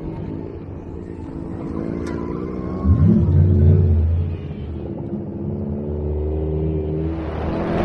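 Fuel-injected Ford 5.0 V8 in a drift truck revving, its pitch sweeping up sharply about three seconds in and loudest for a second or so, then settling back to a steadier drone.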